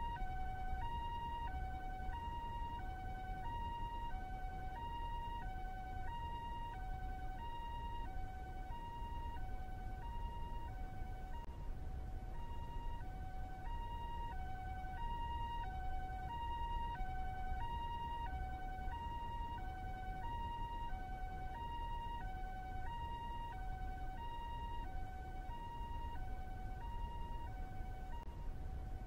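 Two-tone ambulance siren sounding its alternating high and low notes in the Japanese 'pee-po' pattern, about one high-low pair every 1.2 seconds without a break, over a steady low rumble of city ambience.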